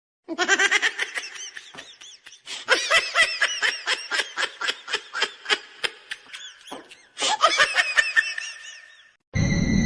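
A person laughing hard in three bouts of quick, rhythmic ha-ha pulses, about four a second. The sound cuts off just before the end.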